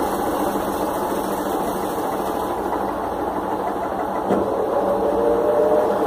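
Electrolux LF11 top-loading washing machine spinning its basket: steady motor, belt and drum running noise. About four seconds in there is a click, and then the sound grows a little louder with a thin whine rising slightly.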